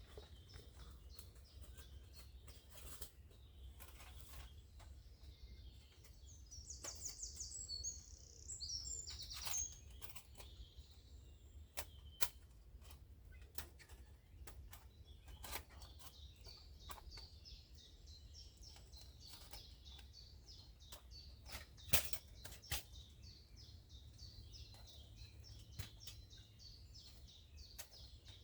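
Scattered sharp clicks and knocks of a folding metal twig stove and kit being set up by hand on a fire mat, with one louder knock about two-thirds of the way through. A bird sings a quick run of high notes about a quarter of the way in, and a high chirping repeats through the second half.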